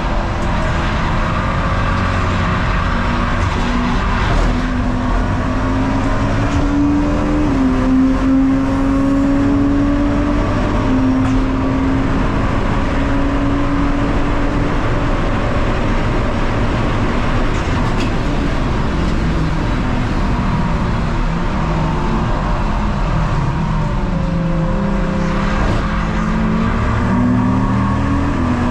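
Race car engine running hard at speed, its note climbing slowly and dropping back a few times, over steady road and wind noise.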